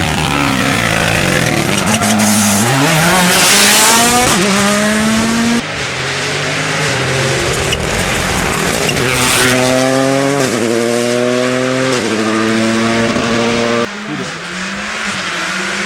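Rally car engines revving hard, their pitch climbing and stepping through gear changes as the cars accelerate past. There is a loud rushing burst about four seconds in and again about nine seconds in, and the sound shifts abruptly twice as one car gives way to the next.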